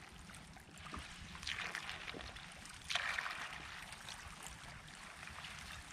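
Small waves lapping and washing at a pebbly water's edge, with two louder washes about a second and a half and three seconds in.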